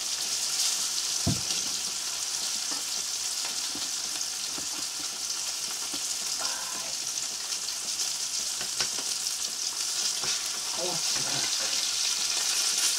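Crucian carp frying in hot oil in a pan on a wood stove: a steady sizzle, with a dull knock about a second in.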